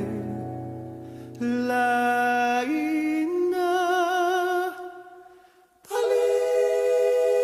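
Music: a slow song with long held notes sung with vibrato, stepping upward, fading almost to silence about five seconds in before a new sustained chord begins.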